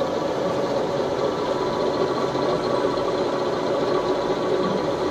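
Dynamic balancing machine spinning a DC motor armature on its roller supports through an end-drive shaft: a steady mechanical whir with several held tones. The armature is running balanced.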